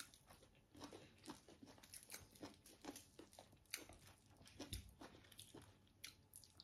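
Faint crunching and rustling of fingers picking through and mixing shredded Singju salad on a banana leaf: many short, irregular crackles.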